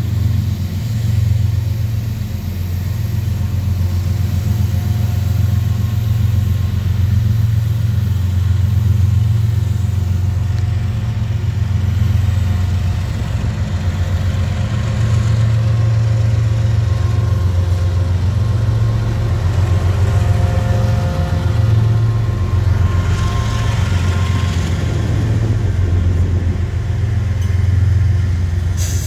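Norfolk Southern GE ES44AC diesel locomotives rumbling as they pass slowly at the head of an empty coal train. The engines make a steady low drone that swells and eases as the units go by.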